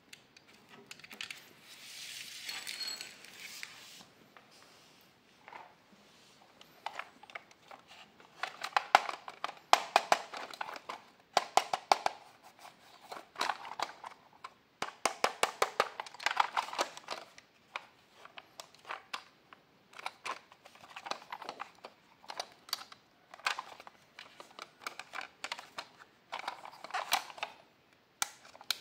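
Red plastic Spider-Man toy car being handled and turned over in the hands. A rustling hiss comes in about a second in, then repeated bursts of rapid plastic clicking follow.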